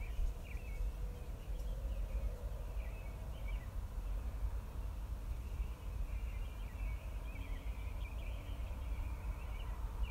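Small birds chirping in clusters of quick notes, with a lull in the middle, over a steady low rumble.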